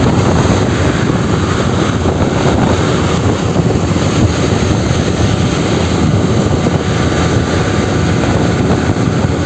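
Steady rush of wind hitting the microphone, mixed with motorcycle engine and road noise, while riding at highway speed.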